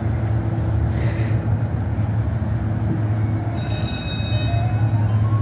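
Steady low rumble with an ice cream truck's music chime starting about three and a half seconds in: a bright high tone, then a tune stepping upward note by note.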